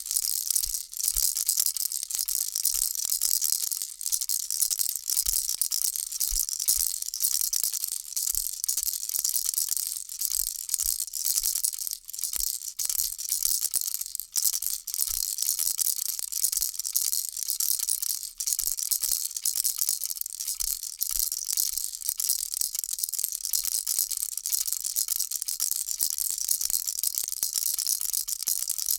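Baby rattle shaken steadily and without a break: a dense, high-pitched rustling clatter of small pellets against the shell that swells and eases in gentle waves.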